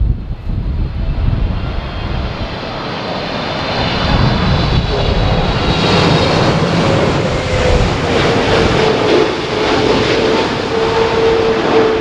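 Boeing 777-300ER's GE90 turbofan jet engines roaring and whining as the airliner passes low overhead on final approach, growing louder over the first few seconds. A high whine fades out about halfway through, and a lower steady tone then comes in and slides slightly down in pitch.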